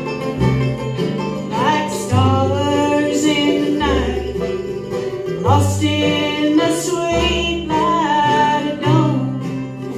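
Live bluegrass band playing: upright bass, banjo, guitar, mandolin and fiddle, with a melody line on top that slides up into its notes.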